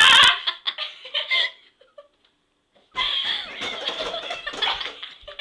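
Girls laughing and giggling, with a short loud burst at the very start. The laughter dies away to a brief silence about two seconds in, then breaks out again.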